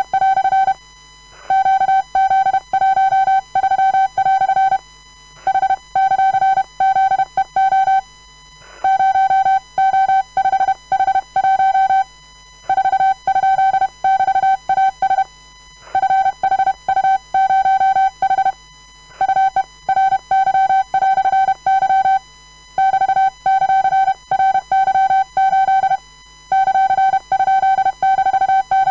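Hand-sent Morse code: a steady, mid-pitched beep keyed on and off in quick dots and dashes. The characters come in groups of one to three seconds, separated by short pauses.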